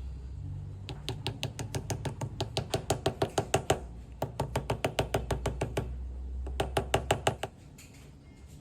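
Rapid, evenly spaced knocking, about seven strokes a second, in three runs that stop and restart, over a low hum that drops away near the end.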